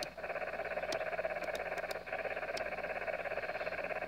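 Steady hiss of the MFJ Matchmaker's noise signal heard through a Yaesu FT-857D receiver in USB, with brief dips in level about a tenth of a second in and about two seconds in, and a few faint ticks. The noise sits near S9, the sign that the magnetic loop's capacitor is tuned close to resonance.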